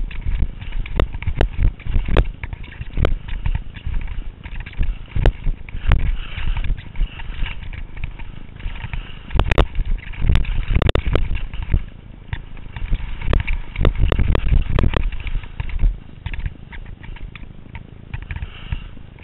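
Wind buffeting a helmet-mounted action camera's microphone during a downhill ski run, with edges scraping and hissing over the snow. Frequent knocks come as the helmet jolts over bumps, thickest about halfway through.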